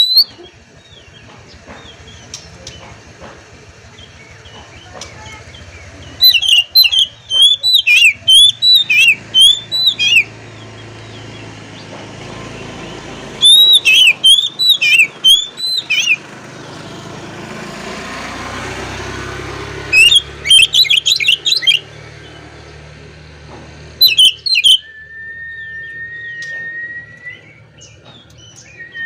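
Oriental magpie-robin (kacer) in its 'ngobra' song: loud bursts of rapid, bending chirps and chatter, repeated four times with short pauses. Near the end it holds a long steady whistle. The song is the bird calling out rivals.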